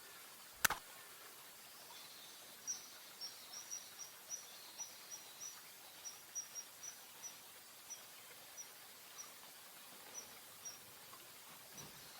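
A single sharp click, then a bird's short high calls repeated about twice a second for several seconds over faint outdoor background noise.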